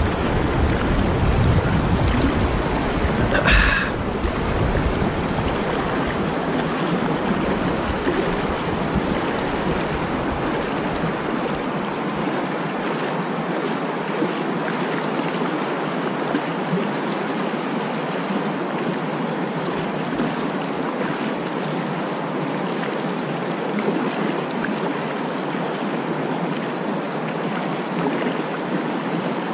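Steady rush of stream water flowing below a lake spillway. Low wind rumble on the microphone dies away about twelve seconds in, and a brief sharp sound comes about three and a half seconds in.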